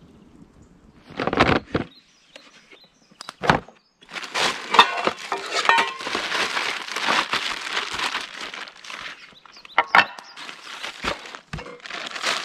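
Bags rustling and crinkling as camping gear is rummaged through, with scattered clicks and knocks. There is a short loud burst about a second in and a sharp knock about three and a half seconds in, then the rustling runs on.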